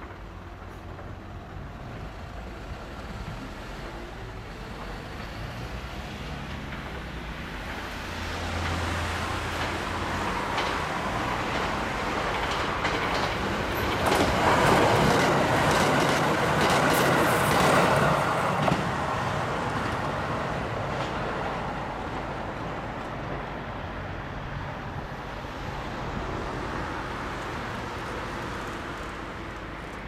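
A three-car KiHa 189 series diesel multiple unit limited express approaches and passes close by. It grows louder over the first half, and its wheels click rapidly over the rail joints at its loudest, about fourteen to nineteen seconds in. Then it fades away.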